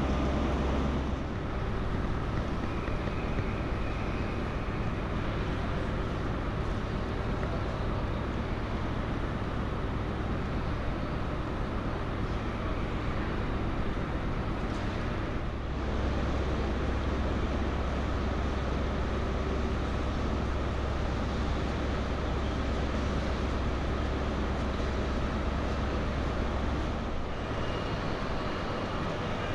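Steady ambient noise of a large railway station, with a low hum that comes and goes as the sound cuts abruptly about a second in, about halfway through and near the end.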